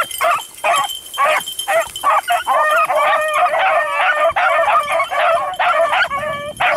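Several beagles baying together, short repeated pitched calls overlapping one another and growing denser after the first couple of seconds.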